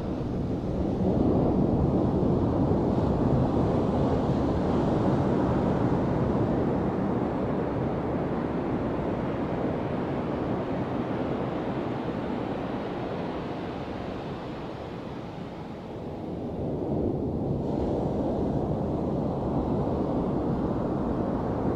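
Small waves washing onto a sandy beach, a steady low surf that swells about a second in, eases, then builds again near the end, with wind buffeting the microphone.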